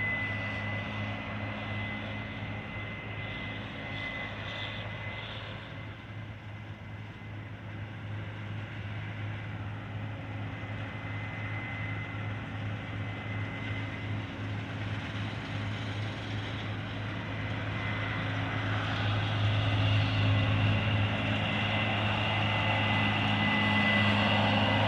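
Harvest machinery engine running steadily, a deep hum with a thin high whine over it, growing louder over the last few seconds.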